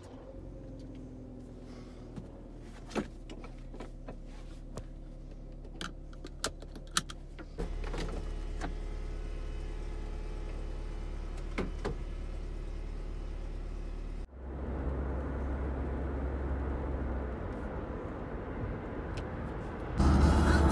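Car engine running, heard from inside the cabin, as a steady low hum with scattered clicks and knocks. About two-thirds of the way through, a steady rush of engine and road noise from driving takes over.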